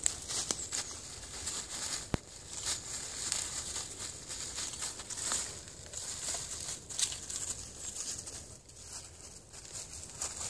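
Puppies scrambling through dry fallen leaves: irregular rustling and crunching of leaf litter under their paws, with a single sharp click about two seconds in.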